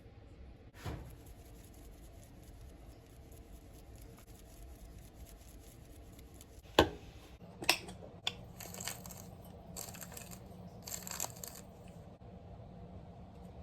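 A few sharp knocks and clicks, the loudest about seven seconds in, followed by several seconds of rustling and tearing, like plastic food packaging being handled and torn open.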